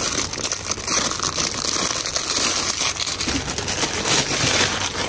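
Packaging crinkling and rustling as it is handled, a dense run of small crackles without pause.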